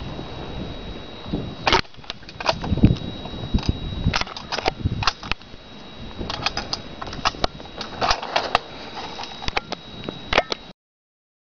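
Irregular sharp cracks and knocks, a few of them loud, over a low rumble, with a faint steady high whine; the sound cuts off abruptly near the end.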